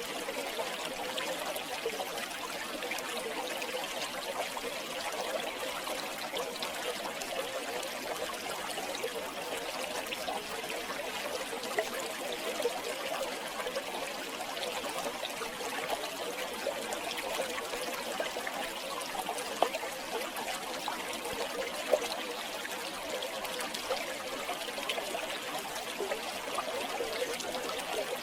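River water flowing and trickling steadily over stones, with small splashes and gurgles throughout and a few brief louder splashes.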